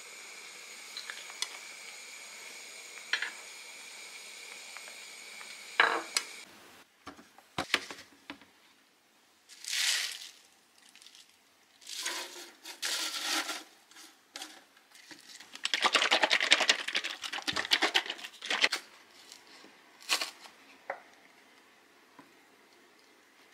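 Handfuls of fresh spinach leaves rustling and crackling as they are stuffed into a blender jar, in several bursts, the longest about two seconds. Before this, a steady faint high hum with light clicks of chopsticks on a plate.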